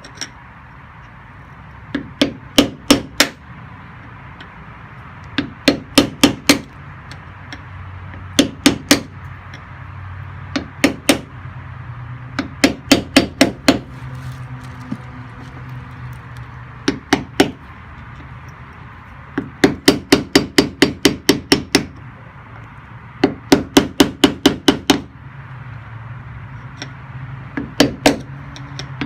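Hammer striking a chisel against a brass thru-hull fitting, collapsing the fitting inward. The blows come in quick runs of three to ten, about four a second, with short pauses between runs.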